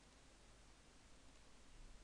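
Near silence: a faint steady hiss with a low hum, the recording's room tone.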